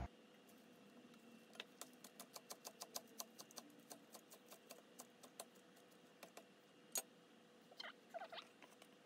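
Kitchen knife chopping green onions on a bamboo cutting board: faint quick taps, about four or five a second, for several seconds. A single louder knock follows, then soft scraping as the chopped onions are pushed off the board.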